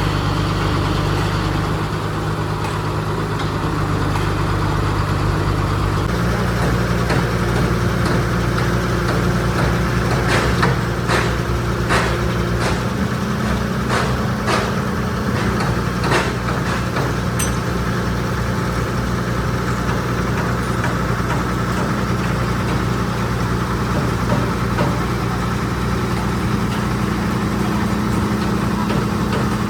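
Heavy diesel engine running steadily; its note changes to a different pitch about six seconds in. A series of sharp knocks comes between about ten and seventeen seconds in.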